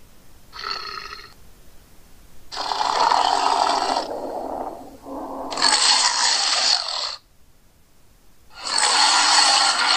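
Made-up monster vocalizations for a giant crocodile creature: a short pitched call, then three long, rough, breathy growls, each lasting one and a half to three seconds.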